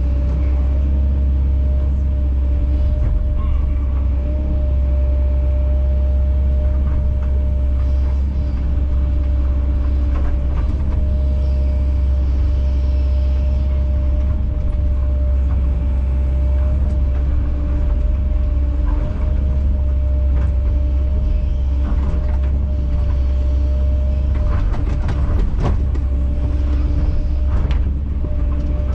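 Kobelco SK210 excavator's diesel engine running steadily as a loud low drone with a thin steady whine over it, broken by a few sharp knocks, most of them late on.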